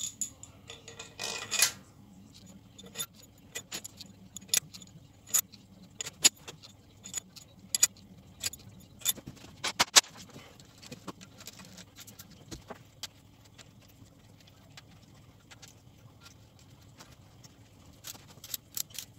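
Irregular sharp metallic clicks and clinks as oiled cylinder-head bolts and their washers are fitted and run into the engine block, with a short scrape about a second in. The clicks pause for a few seconds in the later part, then come in a quicker run near the end.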